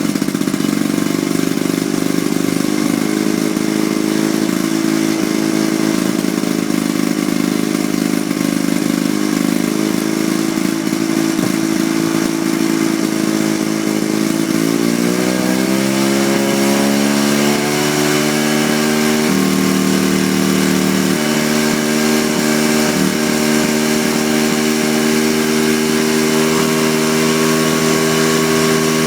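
Vintage Victa 18 rotary lawnmower's small two-stroke petrol engine running steadily. About halfway through its pitch slides down as the engine slows to a lower speed, and it runs on there.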